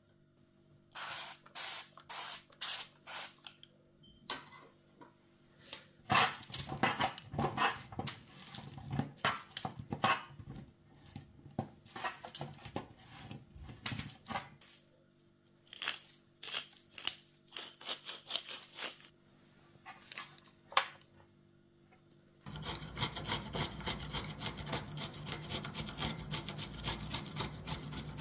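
Kitchen food preparation: scraping and rubbing strokes on a board, in short runs with pauses. In the last quarter they become fast, steady back-and-forth strokes like sawing or grating.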